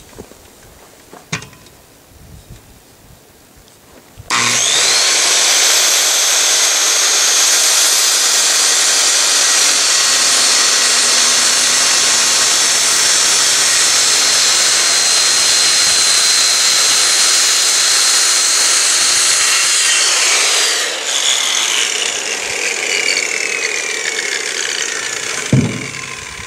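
Electric circular saw starting up about four seconds in and cutting steadily through a thick wooden landscaping timber with a loud high whine. About five seconds before the end it is released and its blade spins down with a falling whine, and a thump follows near the end.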